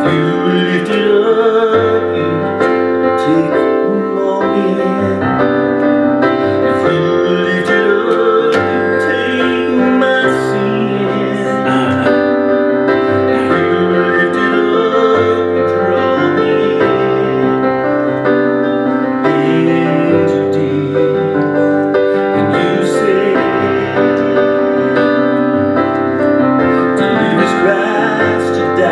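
Piano-sound keyboard playing a slow worship song, steady held chords over a bass line.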